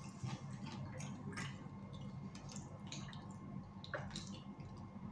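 Faint chewing and crunching of fried turon (banana spring rolls), small irregular crackles and clicks of people eating, over a low steady room hum.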